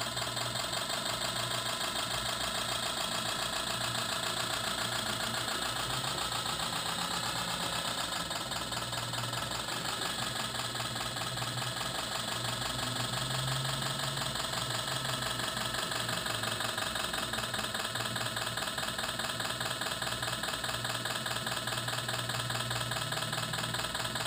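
Simulated diesel engine sound from an RC model's electronic sound module, a steady idling clatter played through the model's speaker.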